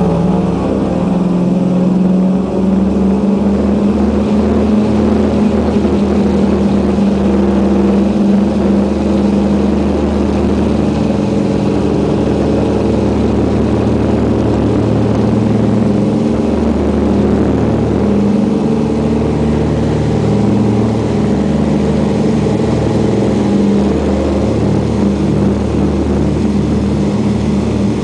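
The twin Pratt & Whitney R-1830 Twin Wasp radial engines of a Douglas DC-3A run at full take-off power through the take-off roll and lift-off, a loud, steady propeller drone heard from inside the cabin.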